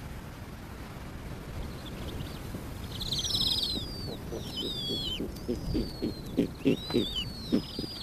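Snowy owls calling at the nest: from about three seconds in, thin high calls sliding downward, then a run of short low calls in the second half, over a low wind rumble.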